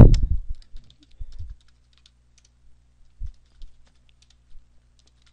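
Typing on a computer keyboard: scattered faint key clicks, after a loud low thump at the very start.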